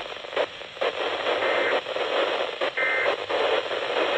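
Radio static: a steady, loud hiss from a weak, noisy radio signal, with brief faint tones breaking through twice.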